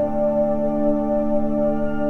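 Slow ambient healing music: sustained, softly held synthesizer or organ-like chords.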